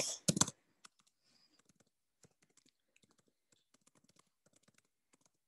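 A louder knock about a third of a second in, then scattered faint clicks and taps of small hard objects being handled or pressed, with no steady rhythm.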